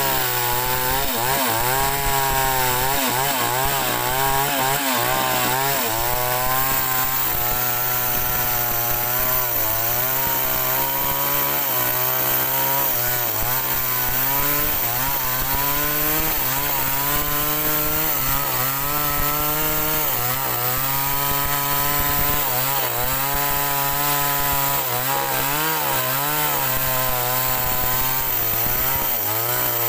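Two-stroke chainsaw ripping a log along its grain under full throttle. The engine note sags and recovers again and again as the chain bites and clears, under a steady chip-cutting hiss.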